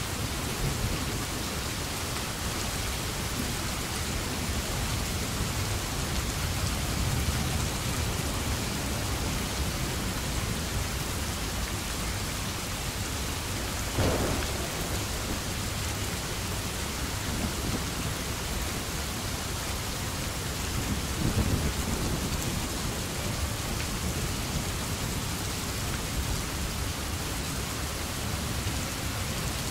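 Steady rain with a low rumble of thunder underneath. A sudden sharp burst comes about halfway through, and the rumble swells briefly a little later.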